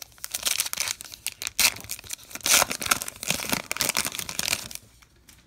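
Foil-lined wrapper of a baseball card pack being torn open and peeled back by hand: irregular tearing and crinkling that stops shortly before the end.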